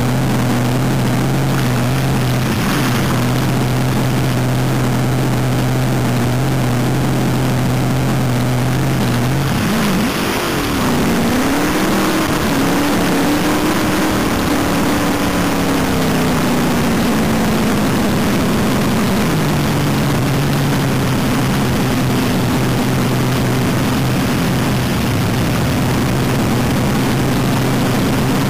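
Front-engine dragster's engine running through open headers, a loud steady idle heard from just behind the engine. About ten seconds in the pitch wavers and rises a little, then settles back to the steady idle a few seconds before twenty seconds.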